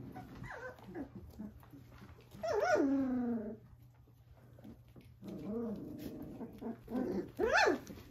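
A litter of young puppies whining and yelping: a long whine falling in pitch about two and a half seconds in, a few softer whimpers, and a short, sharp yelp near the end.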